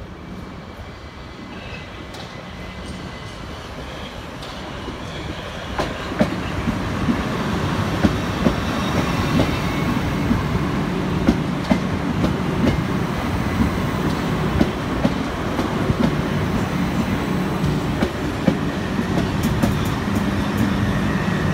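Southern Class 377 Electrostar electric multiple unit approaching and running past along the platform, growing louder over the first six seconds. After that its running noise holds steady, with the wheels clicking repeatedly over the track.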